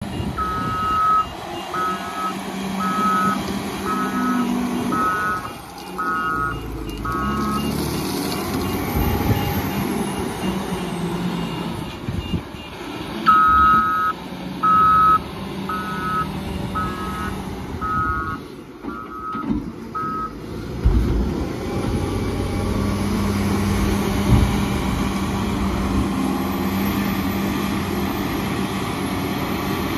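JCB 455 wheel loader's diesel engine running steadily as the machine works, with its reversing alarm beeping about once a second. There are two runs of beeps: one at the start, and another beginning a little before halfway.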